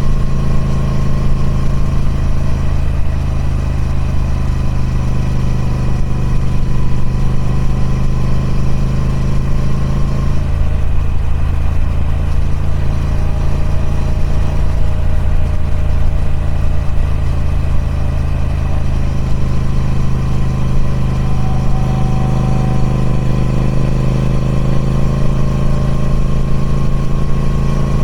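Triumph Speed Twin 1200's 1200cc parallel-twin engine running steadily through its stock exhaust, with a low, even drone. The engine note shifts slightly about ten seconds in and again about twenty seconds in.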